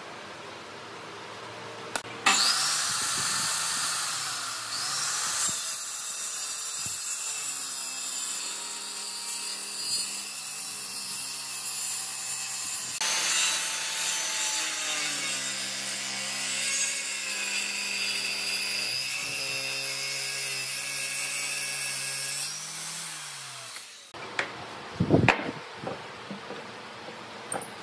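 Handheld circular saw running and cutting through a wood-and-epoxy board for about twenty seconds, starting a couple of seconds in, its motor pitch wavering as the blade meets the work. A few sharp knocks follow near the end.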